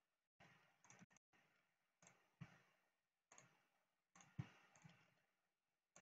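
Faint computer mouse clicks, about eight of them spread irregularly over a few seconds against near silence, the sharpest about four and a half seconds in.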